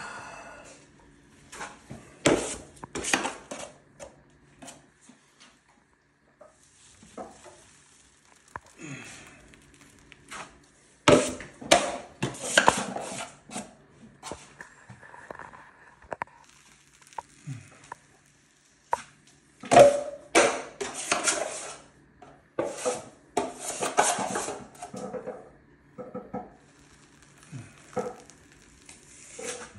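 Steel drywall knife scraping in repeated bursts of short strokes as it spreads and feathers quick-set (20-minute) joint compound on a ceiling, with quieter pauses between the bursts.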